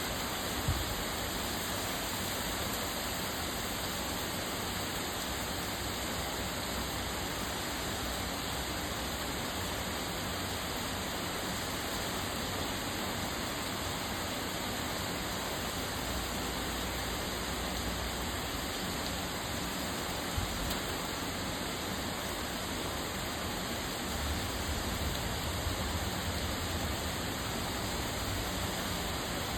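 Heavy rainstorm: a steady, unbroken hiss of torrential rain pouring down. A low rumble swells twice, around the middle and again later.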